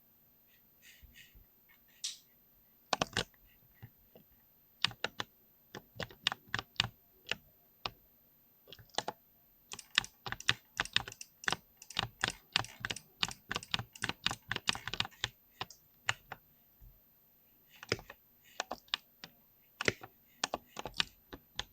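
Typing on a mechanical keyboard with Cherry MX Speed Silver linear switches: irregular runs of sharp keystrokes, fastest and densest in the middle, with short pauses between runs.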